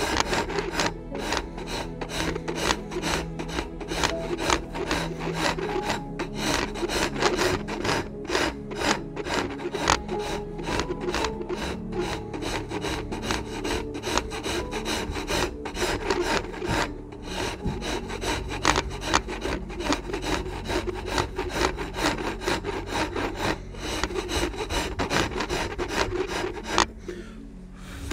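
Hand file cutting into a wooden shotgun stock pattern, a rasping stroke repeated over and over, with a brief pause near the end. This is the flute behind the comb nose being shaped into a concave curve.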